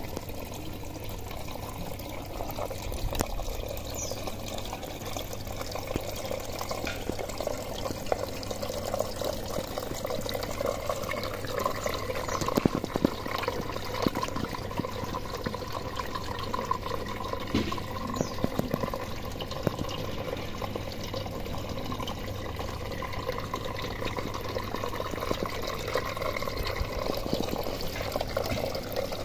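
Water pushed by a pump through the hydroponic system's pipes, pouring and splashing steadily into a reservoir tank.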